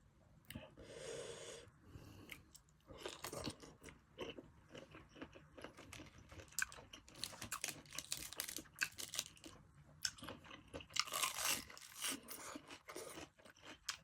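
Close-up chewing of blanched cuttlefish: a continual run of short mouth clicks and crunches as the rubbery flesh is bitten and chewed.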